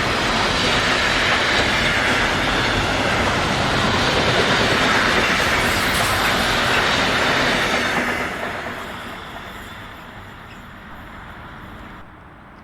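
A train passing close by, its wheels rolling loudly on the rails in a steady rush of noise that fades away after about eight seconds as it moves off.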